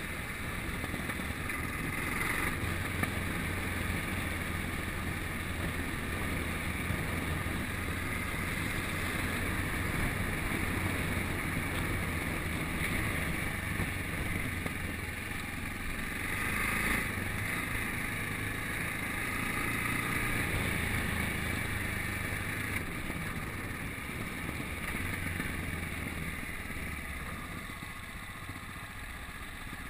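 Yamaha Ténéré adventure motorcycle riding along, its engine running steadily at road speed, with wind and road noise on the onboard microphone. The engine eases off slightly near the end.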